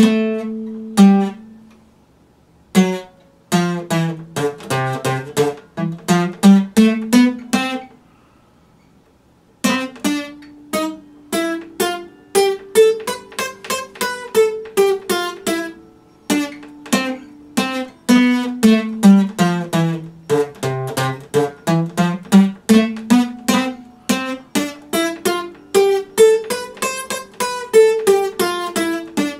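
Epiphone acoustic guitar played solo: single notes and chords picked one after another in a loose melodic phrase. The playing stops briefly twice, about two seconds in and again around eight seconds in, for a second or so each time, then carries on.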